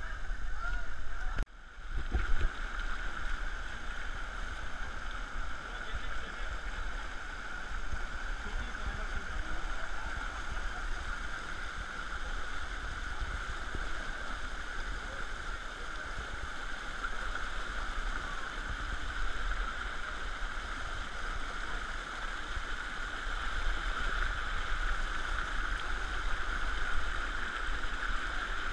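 Steady rush of flowing stream water, with a low rumble underneath; the sound cuts out briefly about a second and a half in.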